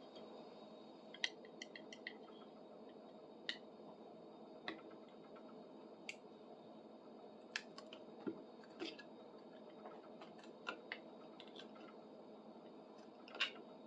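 Faint, scattered small clicks and light taps of hand work on the tool's handle socket, a few in quick clusters, over quiet room tone.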